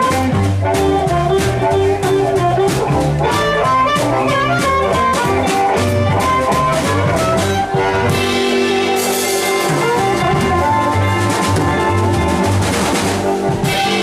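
Live blues band playing: amplified harmonica over electric guitars, upright bass and drums. In the last few seconds the band holds a closing chord under a wash of cymbals, and the music stops at the end.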